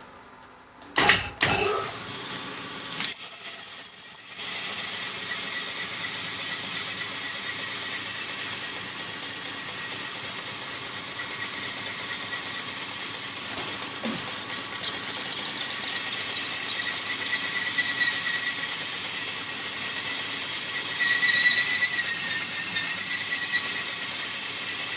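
Honing machine running its hone in a Perkins 248 cylinder bore: a steady abrasive hiss with a thin high-pitched squeal over it. A couple of knocks come about a second in, the hone starts up loudest at about three seconds, and it cuts off at the end.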